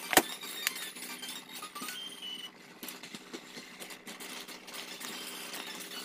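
Light clinking and tinkling over a steady low hum, with one sharp, loud click just after the start.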